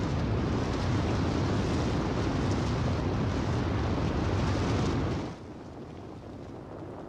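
Avalanche of snow and ice debris sliding and tumbling with a loud, low, steady rumble that cuts off suddenly about five seconds in, leaving a quieter steady hiss.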